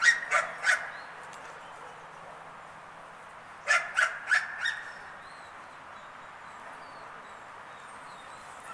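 Dog barking in two quick runs: three sharp barks at the start, then four more about three and a half seconds in.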